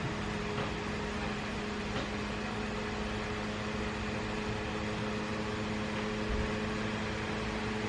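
Steady electric hum with a constant low drone and hiss, like a fan or other appliance running, with a few faint ticks.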